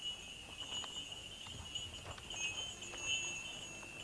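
A faint, steady high-pitched ringing tone, wavering slightly, with a higher tone above it.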